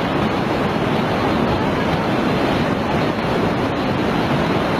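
Tsunami floodwater surging across land: a loud, steady rush of churning water that does not let up.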